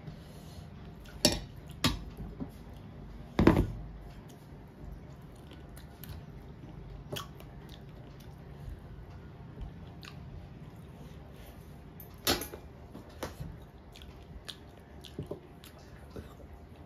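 Dishes clinking and knocking against a large metal plate as food is served onto it and mixed by hand, with a few sharp knocks, the loudest about three and a half seconds in, and soft chewing and small ticks between.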